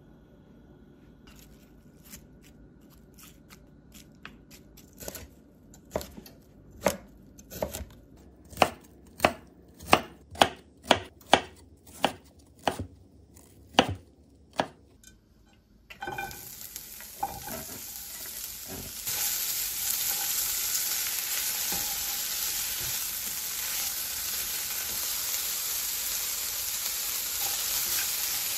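Knife chopping raw broccoli on a wooden cutting board: a run of sharp knocks, about two a second at their loudest. Then broccoli and sliced ham sizzling as they are stir-fried in a frying pan with a spatula, the sizzle growing louder a few seconds after it starts.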